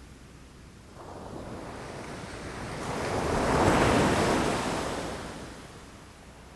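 A single ocean wave crashing against rocks: the wash swells from about a second in, peaks in the middle, then recedes and dies away near the end.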